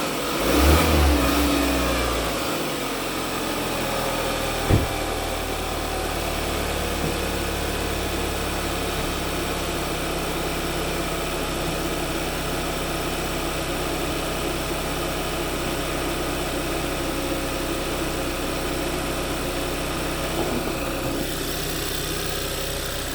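Turbocharged Kia engine briefly revved near the start, then idling steadily with one sharp knock about five seconds in. This is its start-up rattle, which the owner traced to a failing turbocharger bearing.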